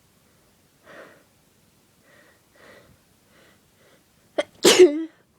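A pepper-induced human sneeze: a few faint breaths as the sneeze builds, then a short sharp catch of breath and one loud sneeze near the end.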